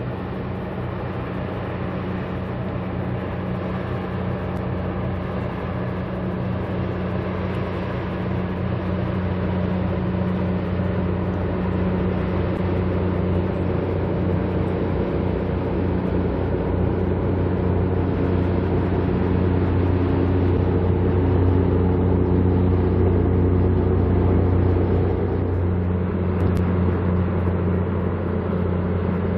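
Diesel engines of the small car ferry Kanafuro Maru No.21 running as it passes close by: a steady low drone with a deep hum that swells slowly, peaks a little past the middle, and eases slightly near the end.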